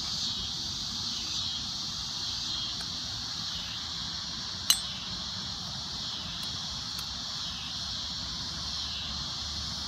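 Steady high-pitched chorus of insects, rising and falling in slow swells. About halfway through, a single sharp clink of a serving utensil against a plate.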